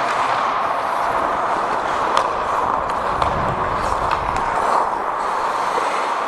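Ice hockey rink sound picked up by a referee's helmet camera: a steady hiss with a few faint clicks and a low rumble swelling about three seconds in.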